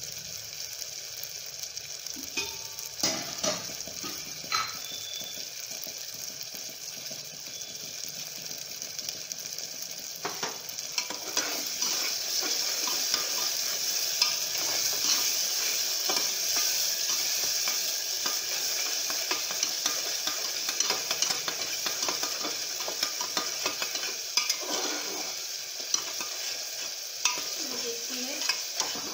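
Browned onions and a garlic, ginger, poppy seed and red chilli paste frying in oil in a pan, sizzling steadily while being stirred, with a few sharp knocks of the spatula against the pan. The sizzle grows louder about a third of the way in.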